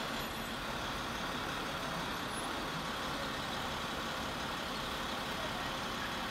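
Crane's engine running steadily, a constant mechanical drone that holds the slung load.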